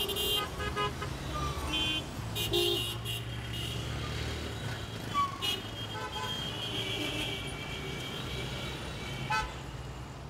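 Inside a city bus in traffic: the bus engine rumbles low and steady while vehicle horns toot several times outside.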